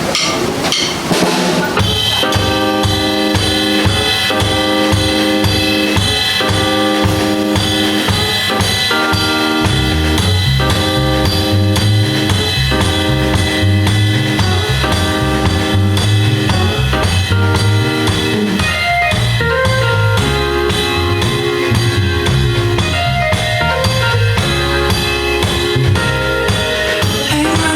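Live pop band playing an instrumental passage: a few drum hits, then a steady drum-kit beat with a bass line and repeated chords. The bass line gets heavier about ten seconds in.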